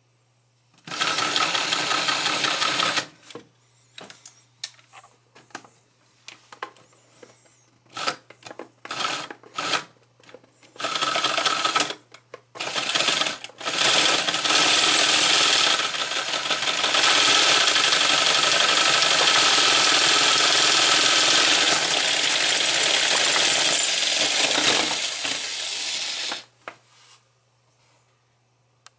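A LEGO electric motor turns the crank and pistons of a LEGO V-twin engine model, making a fast, steady rattle of plastic parts. It runs briefly, starts and stops in short spells, then runs for about twelve seconds.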